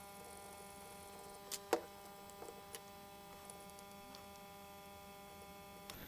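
Faint steady electrical hum, with a few faint clicks about one and a half to three seconds in.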